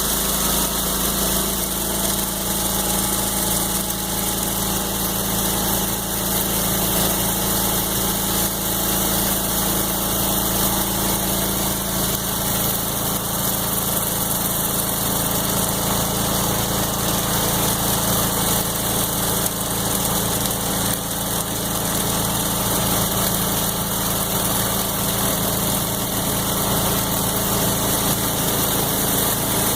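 Gas-engine pressure washer running steadily, with a constant hiss of high-pressure water spraying from a 20-inch BE Whirl-A-Way surface cleaner working over concrete.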